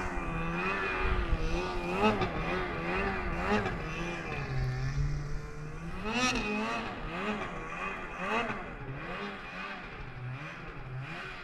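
Snowmobile engine revving up and down repeatedly while being ridden, its pitch rising and falling every second or so, easing off somewhat near the end.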